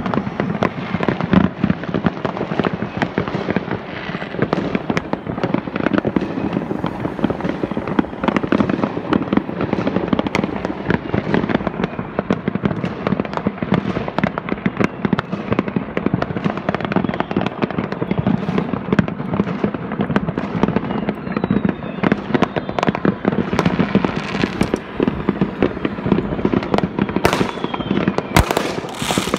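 Many fireworks going off at once: a dense, continuous crackle of bangs and pops. Near the end come a few louder, sharper bangs.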